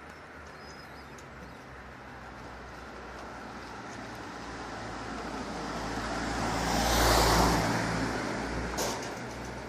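A road vehicle passing by. Its rumble swells slowly to a peak about seven seconds in, then fades.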